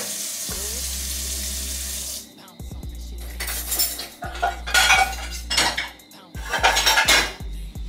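A steady sizzling hiss of food frying stops about two seconds in. It is followed by a run of clinks and clatters of pots, dishes and cutlery being handled.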